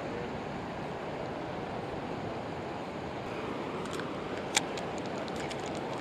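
Steady rush of a flowing river, with a few light clicks in the second half.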